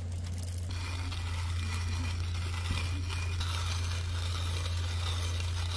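Coffee beans ticking into a hand-crank coffee grinder, then the grinder turned by hand and steadily crunching the beans, stopping near the end. A steady low hum runs underneath.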